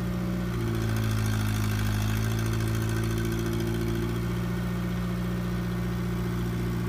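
Heavy diesel engine running steadily at an even speed, a low continuous hum with no revving.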